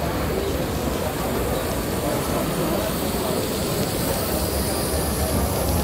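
Steady background noise of an exhibition hall: a constant low rumble and murmur with faint voices in the crowd.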